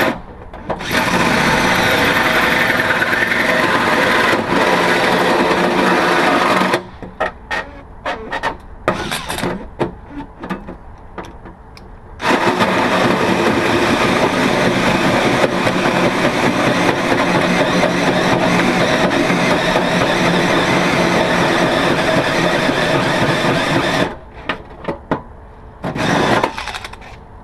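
Power drill with a 105 mm hole saw cutting through the sheet-metal fender. It runs under load for two long stretches, with short stop-start bursts between them and again near the end.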